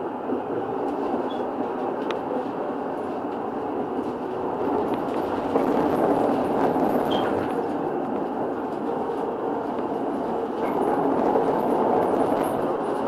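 Munich R 2.2 low-floor tram running along street track, heard from inside: a steady rumble of wheels on rails and the drive, getting a little louder about halfway through and again near the end.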